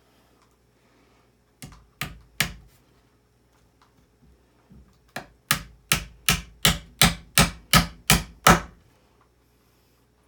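Hammer driving a nail into a wooden frame board: three light taps to start the nail, then after a pause about ten steady blows, roughly three a second, growing louder as it goes in.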